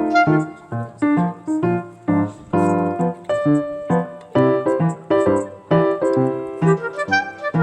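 Background piano music: a melody of quickly struck notes, each fading before the next.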